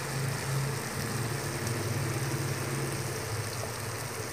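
Stir-fried frog sizzling faintly in the pan just taken off the heat, a steady hiss over a steady low hum.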